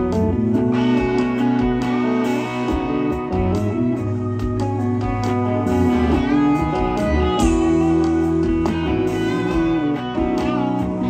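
Rock band playing live: electric guitars over bass and drums, an instrumental intro with no singing yet.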